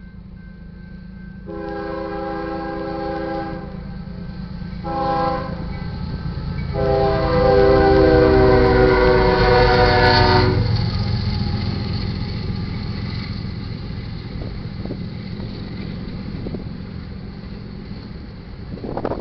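A GE ES44DC diesel locomotive's air horn sounds for the grade crossing: a long blast, a short one, then a longer, loudest blast that cuts off suddenly as the locomotives go by. Under it is the low rumble of the diesel engines passing. The steady rolling rumble and clatter of auto-rack cars follows.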